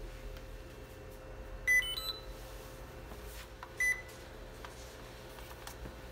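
RC car's electronic speed controller sounding its start-up tones as power is connected: three short beeps rising in pitch about two seconds in, then a single beep about two seconds later, the sign that the controller has armed.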